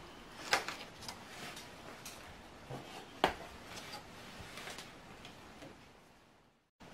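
Light clicks and knocks of small makeup containers and tools being handled and set down on a table. Two sharper knocks come about half a second and three seconds in, and the sound drops out briefly just before the end.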